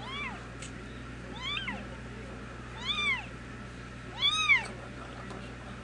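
Cat meowing: four short calls, each rising then falling in pitch, about a second and a half apart.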